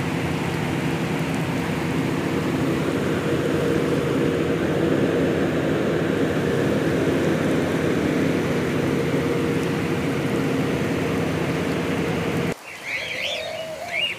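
Steady rushing water noise with a low machine hum from the aquarium's pumps and filters. It cuts off suddenly near the end, giving way to aviary birds, cockatiels among them, chirping and calling.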